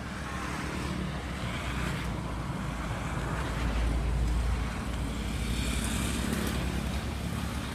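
A motor vehicle engine running nearby, with a low rumble that swells to its loudest around the middle and then eases off.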